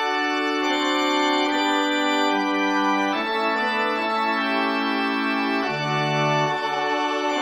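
Organ sound from notation-software playback, playing a slow introduction of sustained chords over a pedal bass. The chords change about once a second, with a deeper held chord near the end under a fermata.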